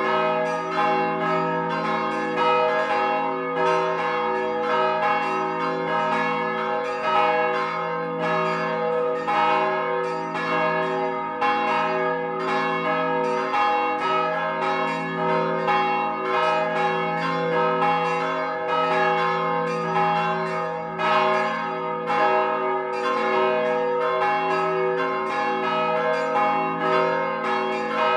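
Several swinging bronze church bells ringing together in a full peal, their strokes overlapping continuously over a steady low hum.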